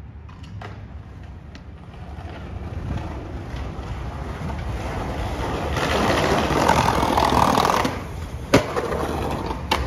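Skateboard wheels rolling over brick pavers, growing louder as the rider approaches, falling away as the board leaves the ground for an ollie down a ten-stair set, then a sharp smack of the landing about eight and a half seconds in and a second clack near the end.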